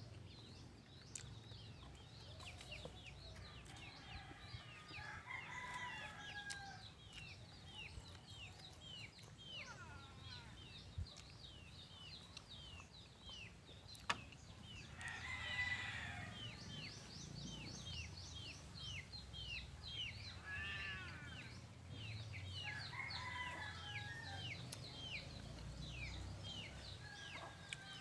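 Rooster crowing a few times with hens clucking in the background, over a small bird's quick falling chirps that repeat steadily throughout. A single sharp knock about halfway through, fitting a drinking glass being picked up from the wooden table.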